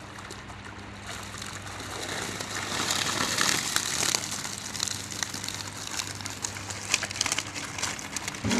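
Water splashing and streaming as a fish keep net is lifted in the pond. The rush of water swells to a peak about four seconds in, then gives way to many short crackly splashes. A faint steady low hum runs underneath.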